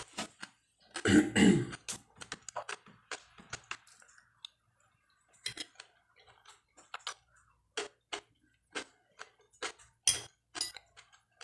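Close-up eating sounds of raw Japanese cucumber slices being chewed: irregular crisp crunches and clicks, with a louder burst about a second in and another near the end.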